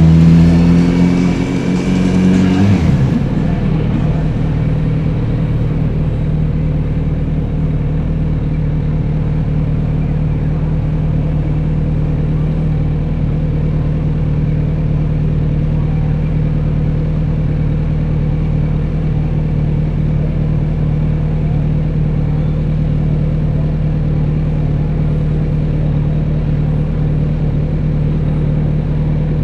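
Kawasaki Z900RS 948 cc inline-four engine and exhaust running under a little throttle. About three seconds in it drops back to a steady idle and holds there.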